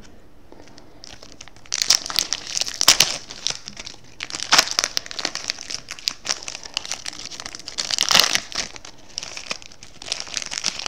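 Trading card pack wrapper being torn open and crinkled in the hands, a burst of crackling after about a second and a half of near quiet, then on and off to the end.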